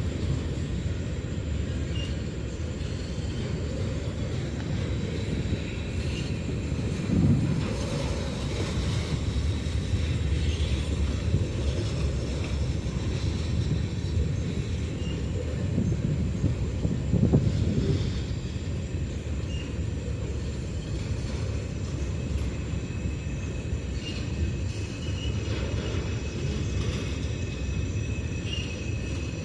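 CSX freight train of autorack cars rolling through a grade crossing: a steady rumble of wheels on rail, with a couple of louder swells partway through.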